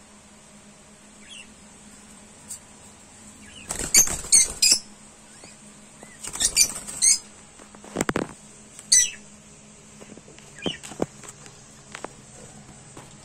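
Peach-faced lovebirds giving sharp, high-pitched squeaky chirps in quick clusters, around four and seven seconds in and again near nine, with a few short knocks.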